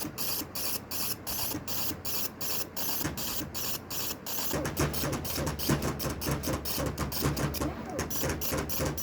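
A machine running with an even, rapid rhythm of about four to five beats a second; about halfway through a low hum joins and the beat gets louder and a little quicker.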